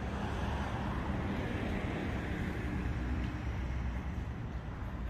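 A car driving past, its engine and tyre noise swelling and then fading away.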